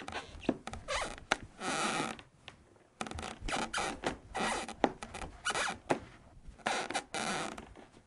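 Squeaky floor creaking loudly, a string of short irregular creaks and squeaks roughly every half second, some with sharp clicks, that stops just before the end.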